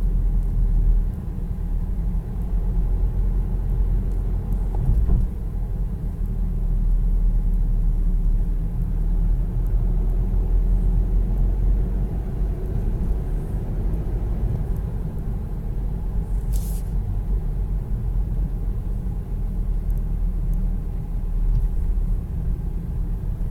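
Car driving along at speed: a steady low rumble of engine and road noise, with a brief hiss about two-thirds of the way through.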